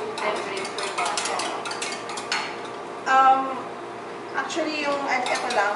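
Wire whisk beating eggs in a stainless steel bowl: rapid metallic clicking and scraping, densest in the first two seconds or so, with a few more clicks near the end.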